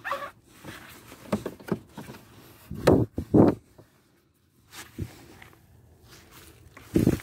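Soapy sponge scrubbing a scooter's foam-covered tyre and wheel: irregular rubbing strokes, with louder bursts about three seconds in and near the end.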